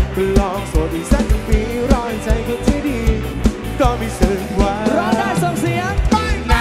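Live band music: a male vocalist sings over a drum kit keeping a steady beat, with guitar.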